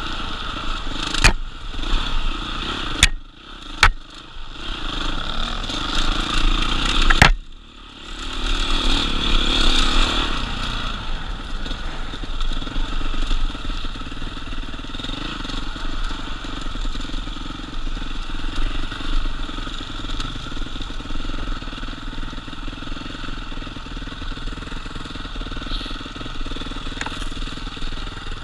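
Off-road dirt bike engine running over a rough trail, with sharp knocks in the first eight seconds and two short drops in engine sound as the throttle is let off. From about ten seconds in it runs steadily.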